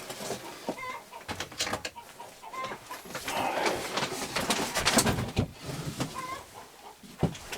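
Clicks, knocks and rustling of hand tools being handled, with short bird calls now and then.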